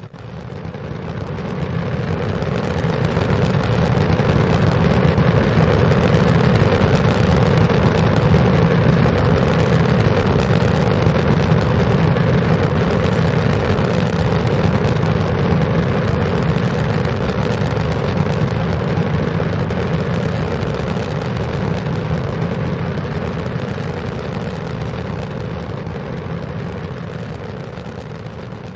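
Rocket engine firing: a continuous rushing, rumbling noise that builds over the first few seconds, holds loud, then slowly fades toward the end.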